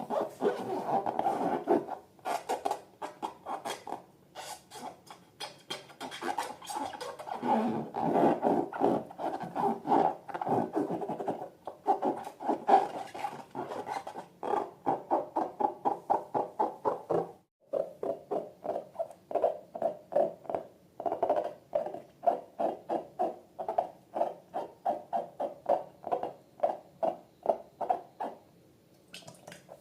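Slime being squeezed and worked by hand, a quick run of wet squelches that settles into an even rhythm of about two to three squishes a second after a short pause midway.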